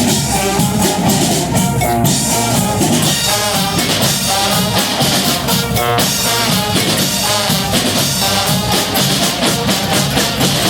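Brass band playing: horns carry the melody over a steady snare and bass drum beat.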